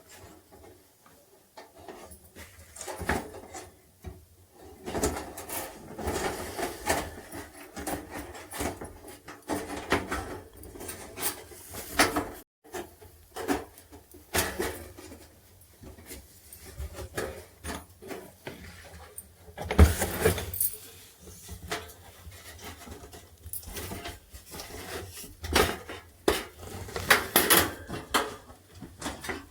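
Metal and plastic parts being handled and worked on: irregular clicks, light clatter and rubbing, with a louder knock about twenty seconds in.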